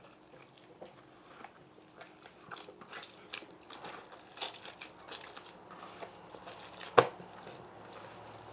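Soft flour dough for sweet tamales being mixed and worked in a bowl as water is added, giving irregular small wet clicks and crackles. One sharp knock comes about seven seconds in.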